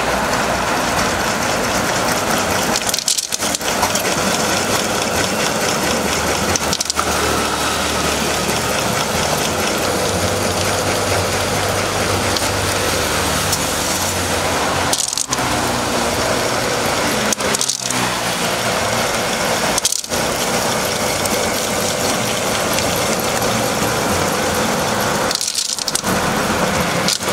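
Electric sambal grinder of the meat-grinder type, driven by an electric motor through a belt and pulley, running steadily while grinding peanuts and chillies into sambal pecel paste. The sound drops out briefly five or six times.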